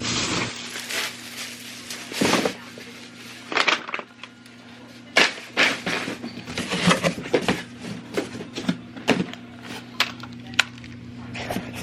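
Hard household objects being handled and set down: a string of irregular clinks and knocks over a steady low hum.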